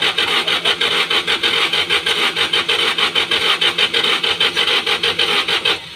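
Rapid, regular rasping strokes, about six or seven a second, cutting off abruptly shortly before the end.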